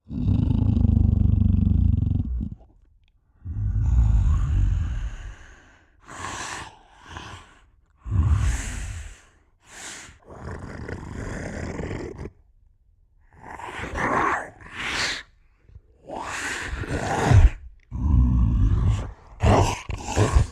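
A string of separate growl- and roar-like sound effects played one after another. The first two are long and deep, and the rest are shorter and harsher, with brief gaps between them.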